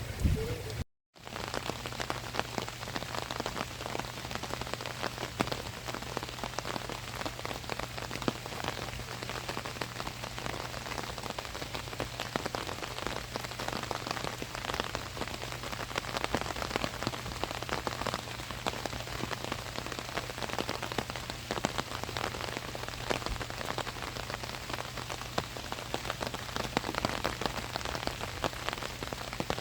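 Steady rain pattering on an umbrella overhead: a dense hiss of many small drop taps. The sound cuts out for a split second about a second in, then carries on evenly.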